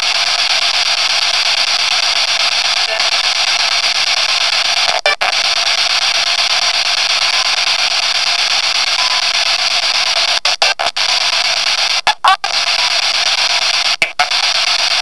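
Steady, loud hissing radio static. It cuts out briefly a few times in the second half: once about five seconds in, and in short gaps around eleven, twelve and fourteen seconds.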